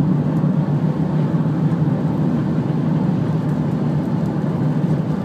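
Car driving at speed, heard from inside the cabin: steady low rumble of road and engine noise.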